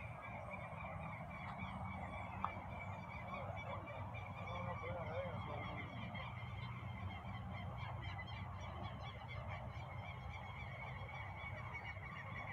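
A chorus of many birds calling at once: dense, continuous, overlapping short calls, over a low steady hum. There is one sharp click about two and a half seconds in.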